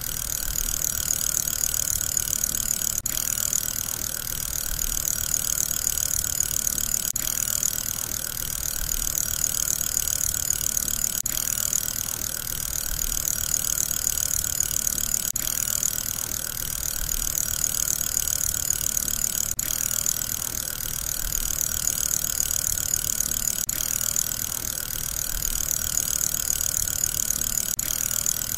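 Steady whirring of a spinning fidget spinner's bearing, a short repeating sound that swells and dips about every four seconds.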